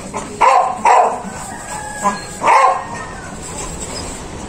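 A dog barking: three short, loud barks in the first three seconds, with a fainter one between the last two.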